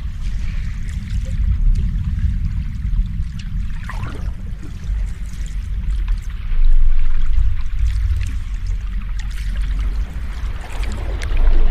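Sea waves washing: a continuous low rumble under a hiss of water, swelling louder a little past halfway.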